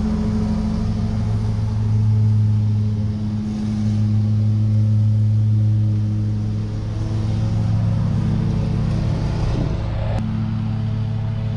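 A heavy truck's diesel engine idling steadily.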